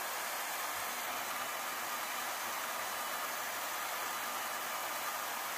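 Band saw running steadily, its blade cutting a slot into a small piece of forged steel bar stock to split out the wings.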